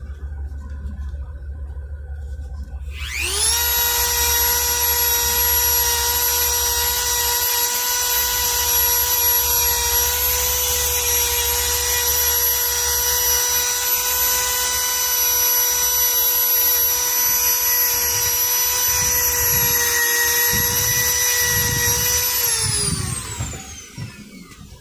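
Dremel rotary tool spinning up about three seconds in to a steady high whine, running for about twenty seconds, then winding down with falling pitch near the end.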